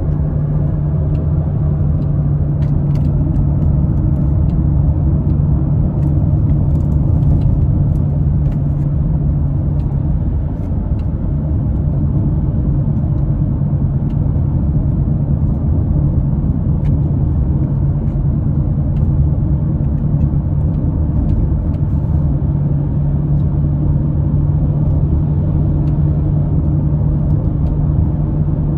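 Car running on the road, heard from inside: a steady low rumble of engine and road noise, with an engine drone that drops away about ten seconds in and comes back past twenty seconds.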